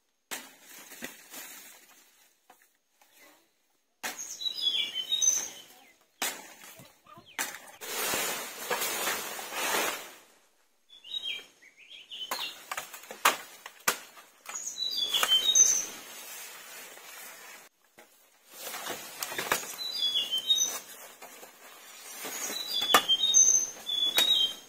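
Small birds chirping in quick clusters of short high calls that fall in pitch, heard several times. Under them, stretches of rustling, scraping noise with scattered clicks start and stop abruptly.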